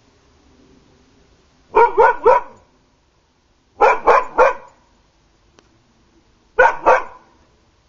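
A large dog barking in three quick runs of two to four barks each, about two seconds apart.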